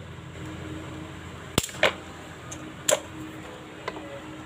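Small sharp clicks and a brief scrape of needle-nose pliers and fingers handling the wiring of a standing fan's push-button switch block, three louder clicks in the middle and a couple of faint ones, over a low steady hum.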